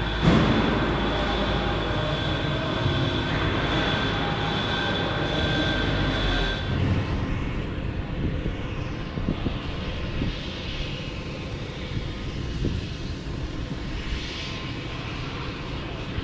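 UH-60 Black Hawk helicopter turbine engines running: a steady whine with several held tones over a low rumble. About seven seconds in it changes to a rougher, noisier rumble with no clear tones.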